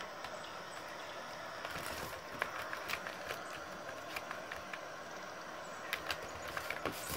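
A cat's paws tapping and scratching at a tablet screen, making scattered light clicks over a steady hiss, with more taps near the end.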